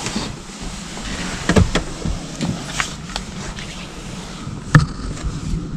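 Handling noise on an action camera held on a gimbal: rustling with a series of knocks and clicks, the loudest about five seconds in.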